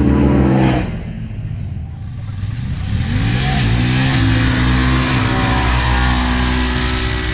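Side-by-side engines at full throttle on a grass drag strip. A loud, steady high-rev engine cuts off about a second in. Then a side-by-side accelerates, its engine pitch climbing and then holding nearly level as it speeds down the strip.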